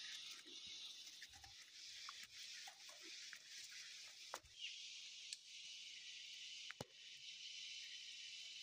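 Near silence: a faint steady high hiss, with a few faint clicks.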